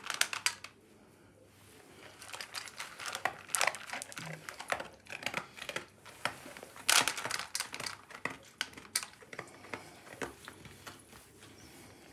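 Doberman eating dry kibble from a stainless steel bowl: irregular crunching and the clatter of pellets against the metal bowl, with a short lull about a second in.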